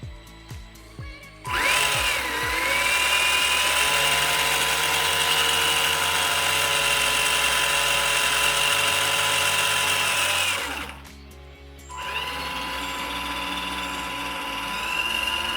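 Tamiya TT01 RC car's electric motor and gear drivetrain whining under throttle. It spins up about a second and a half in and holds a steady high whine for about nine seconds. It cuts off, then runs again more quietly near the end; it runs smoothly, with very little vibration.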